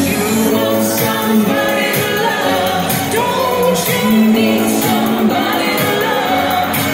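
Loud pop music with singing.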